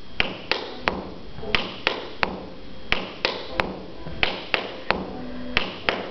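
Chair-clogging footwork: the shoes' heels and toes tapping on a wooden floor in a steady, slow rhythm of sharp taps in repeating groups of three, the right foot heel and toe on the beat and the left foot on the upbeat.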